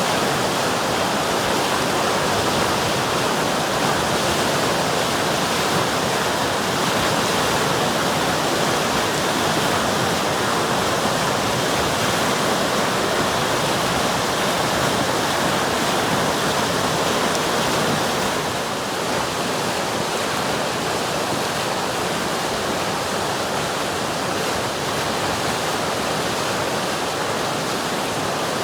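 River water rushing in a steady, unbroken flow, slightly quieter from about two-thirds of the way through.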